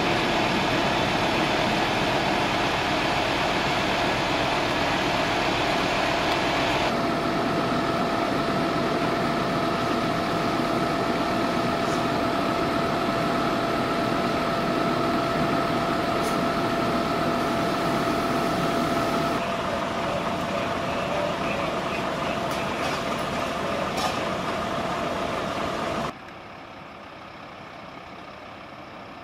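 Fire trucks' engines running steadily at a fire scene: a loud rushing drone with a constant whine through it. A few seconds before the end it drops sharply to a much quieter engine idle.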